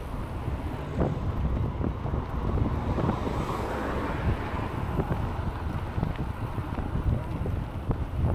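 Wind rushing over the microphone of a camera on a moving bicycle: a steady low rumble with scattered small knocks, and a swell of hiss around the middle.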